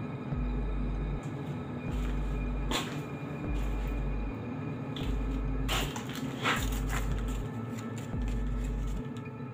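Dark ambient background music: a steady droning hum under a deep pulse that repeats about every 1.2 seconds. A knock about 3 seconds in and a short cluster of knocks and rustles around 6 seconds in sit over it.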